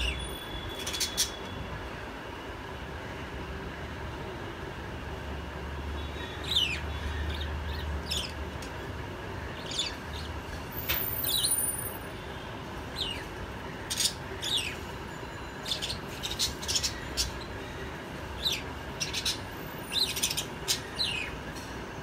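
Small caged parrots chirping: short, sharp tweets, some single and some in quick runs, over a steady background hum, with a low rumble about six seconds in.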